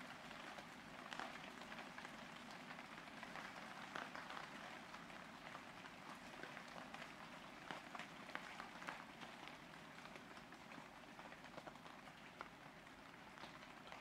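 Faint, steady rain falling on a roof: an even hiss dotted with many separate drop taps.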